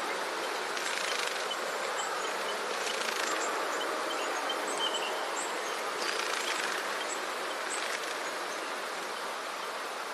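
Steady rustling of leaves and vines as climbers push up through dense undergrowth, swelling now and then, with faint short high chirps.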